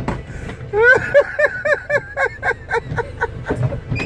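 A person laughing hard: a rapid run of short, high-pitched 'ha' sounds, about four or five a second, starting about a second in and trailing off.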